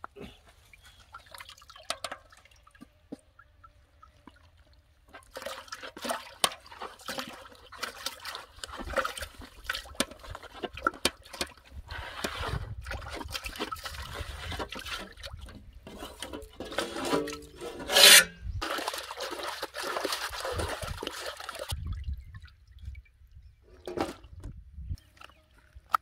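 Water splashing and sloshing, starting about five seconds in and stopping a few seconds before the end, with many small knocks and one louder splash about eighteen seconds in.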